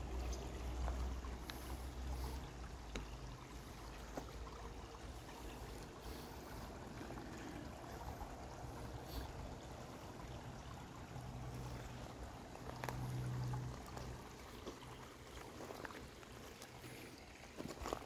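Shallow creek trickling over rocks, a steady soft babble of water. A low rumble sits under it for the first couple of seconds, and a low hum runs under it for a few seconds in the middle.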